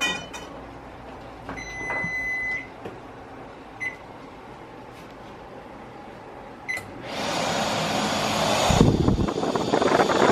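Kenmore microwave's control panel beeping, one longer beep then two short ones, then its exhaust fan starting about seven seconds in and running with a loud, steady rush of air. The fan motor, which before only hummed without spinning, now runs with a new capacitor.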